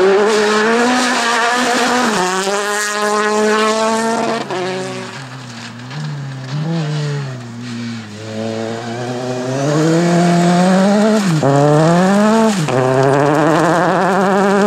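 Rally car engine at full effort on a special stage: it runs hard, backs off to a lower note for a few seconds mid-way, then climbs again through two quick gear changes and holds high revs.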